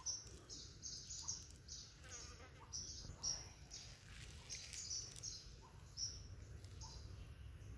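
Small birds chirping, a dozen or so short high chirps at irregular intervals with a brief pause about four seconds in, over a low steady background rumble.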